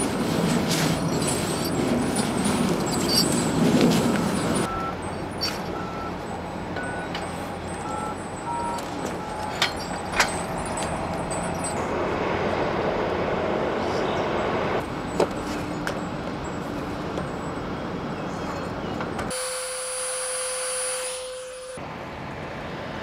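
Steady outdoor background noise with scattered knocks and clicks of equipment being handled. Near the end a steady tone holds for about two seconds.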